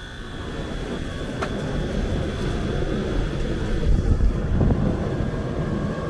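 Outdoor central air-conditioning condensing unit starting up on its newly fitted three-pole contactor: the compressor and condenser fan come on and the low rumble of the fan and airflow builds over the first couple of seconds, then runs steadily. A small click comes about a second and a half in.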